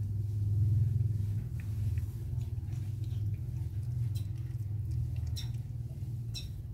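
Persian mother cat licking during birth: scattered short wet clicks and smacks over a steady low rumble.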